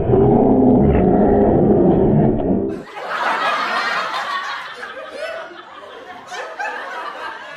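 A group of men laughing, loud and muffled with a low rumble underneath; a little under three seconds in, the sound cuts abruptly to quieter, clearer laughter and chatter.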